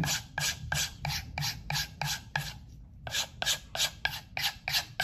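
Opinel knife blade stropped in quick, short strokes on a compound-loaded leather strop, about four strokes a second with a brief pause midway. This is the final stropping of the edge at the apex, after the stones.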